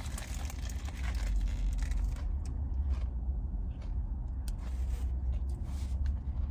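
Chewing on a lettuce-wrapped burger and crinkling of its paper wrapper and a napkin, with scattered small crackles, over a steady low rumble inside the car.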